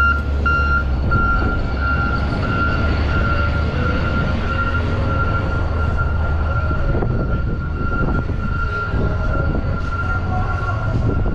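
Heavy snow-clearing vehicle working the street: a deep, steady diesel engine rumble with a high-pitched reversing alarm sounding over it.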